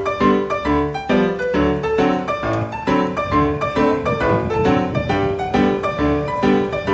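Background piano music with a steady rhythm of notes.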